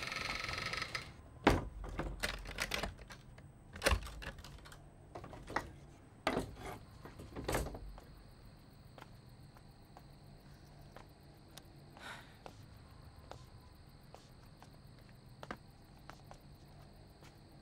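Wooden shuttered door being shut and locked: a short scrape, then a string of knocks and latch clicks over the first several seconds, the loudest about four seconds in. Afterwards it goes quiet except for faint scattered ticks.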